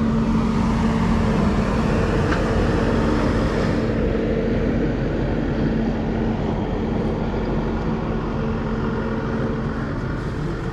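A steady motor hum, holding one even pitch over a low rumble, easing slightly about four seconds in.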